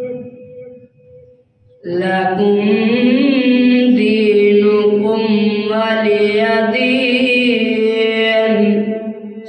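A boy reciting the Quran in the melodic tilawat style into a microphone. After a short pause for breath, he resumes about two seconds in with long, wavering held notes.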